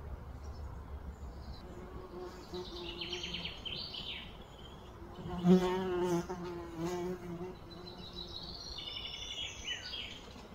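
A flying insect buzzes close past, with a wavering hum that is loudest about halfway through for around two seconds. Songbirds sing quick trilled phrases before and after it.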